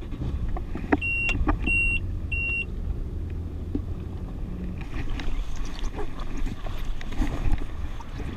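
Yamaha FX HO jet ski running slowly, a steady low rumble with wind and water, with three short electronic beeps about a second in and a few clicks and knocks from handling gear.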